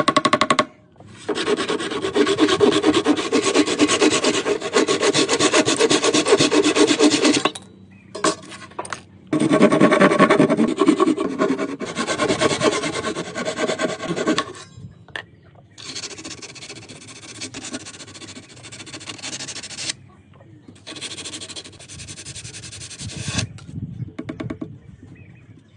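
A tool working wood with scraping, abrading noise, in a series of passes a few seconds long separated by short pauses. The later passes are quieter.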